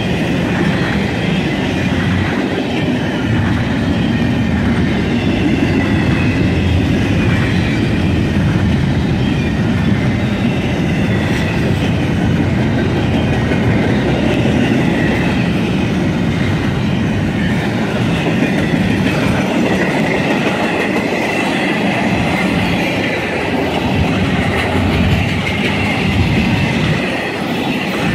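Double-stack intermodal freight train's container well cars rolling past close by: a steady rumble and clatter of wheels on the rails, with a thin steady high tone over it that grows stronger in the last third.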